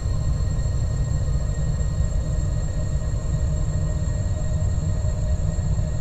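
Steady, deep rumbling drone like a metro train running, with faint constant high-pitched whines above it.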